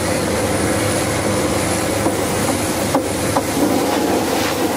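Steady drone of drilling rig machinery running on the rig floor, with a few sharp clicks about two to three and a half seconds in.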